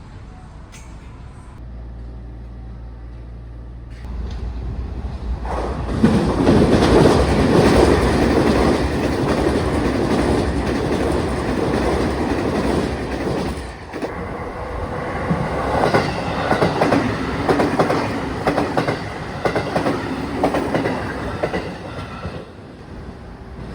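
Tokyu Meguro Line electric train running past, the sound building up over a couple of seconds, then its wheels clacking rhythmically over rail joints. The noise dips briefly about two-thirds of the way through, carries on, and falls away shortly before the end.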